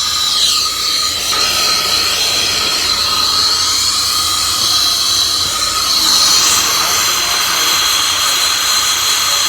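Torch flame burning with a steady hiss and a high whistling tone in it, heating big copper pipe for soldering.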